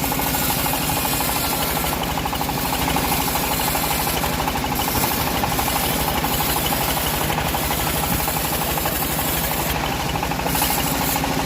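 Band sawmill (gergaji selendang) running steadily, with a fast, even pulsing and a steady hum throughout.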